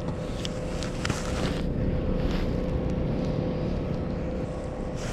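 A steady low rumble with a constant hum from a running motor, likely a boat engine, with a few faint clicks over it.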